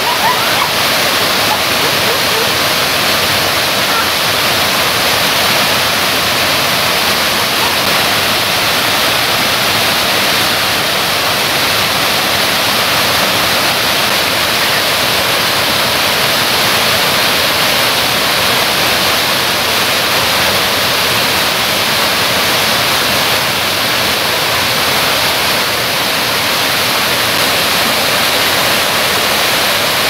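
Kuang Si Falls' cascade: water rushing steadily over the rocks in an unbroken roar of white noise.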